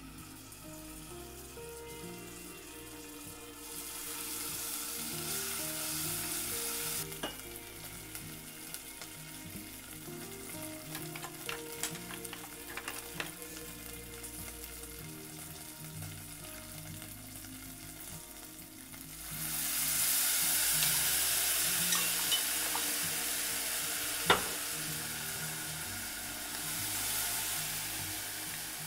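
Dried red chillies and Sichuan peppercorns sizzling in hot oil in a pot as they are stir-fried, with a few sharp clicks of the utensil against the pot. The sizzle swells twice, a few seconds in and again about two thirds of the way through.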